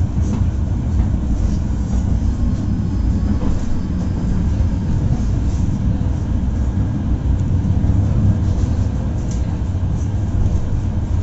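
Tram running along its rails, heard from inside the passenger car: a steady low rumble.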